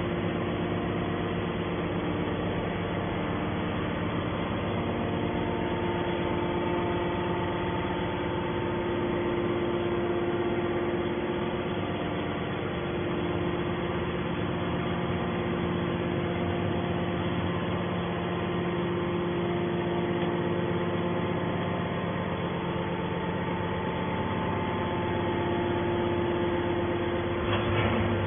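Hydraulic power unit of a scrap-metal baler running steadily: the electric motor and pump hum with several constant tones, which shift a little about five seconds in and again near the end.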